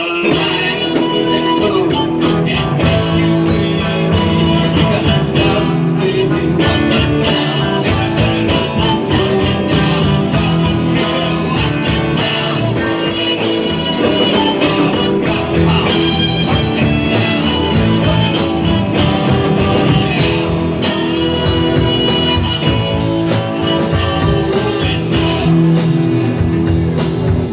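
Band music led by guitar with a steady drum beat, starting abruptly and playing on throughout.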